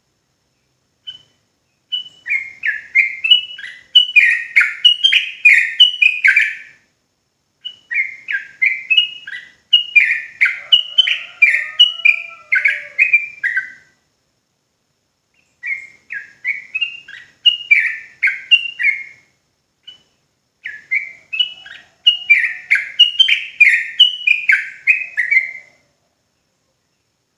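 Yellow-vented bulbul (trucukan) singing its fast 'ropel' song: four runs of rapid repeated notes, each lasting three to six seconds, with a pause of a second or two between runs.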